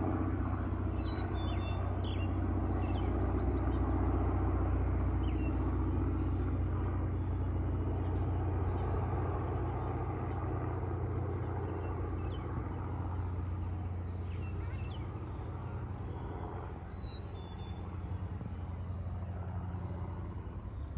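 Piston engine and propeller of a small single-engine banner-towing plane droning overhead: a steady low hum that swells a few seconds in and then slowly fades as it passes.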